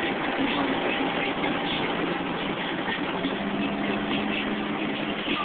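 Car engine and road noise heard from inside the cabin of a moving car: a steady drone, with a steady low engine note coming in about three seconds in.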